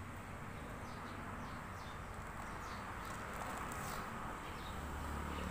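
Birds chirping with short, falling notes, repeated several times, over a steady high-pitched buzz of insects.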